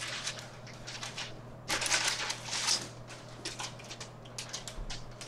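Paper takeout bag rustling and crinkling as it is handled, in several bursts, loudest from about two to three seconds in, with small clicks between them over a faint steady hum.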